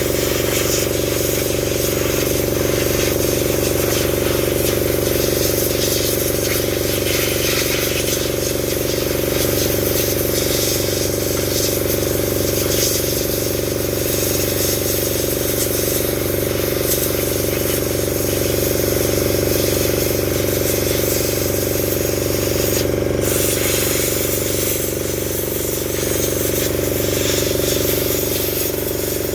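Truck engine running at a steady speed, an even drone with several steady tones over a low rumble. One brief click about three-quarters of the way through.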